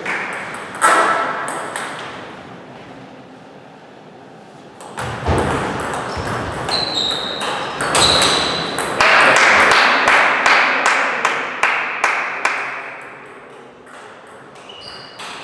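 Table tennis balls clicking off bats and tables in rallies, with more rallies ticking at neighbouring tables. A thump comes about five seconds in, and the clicks come thick and loud from about eight to twelve seconds.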